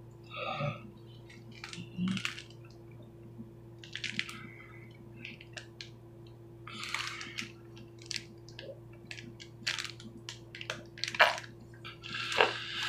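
Plastic zip-top bag holding water, twisted and squeezed in the hands: irregular crinkling and crackling of the plastic.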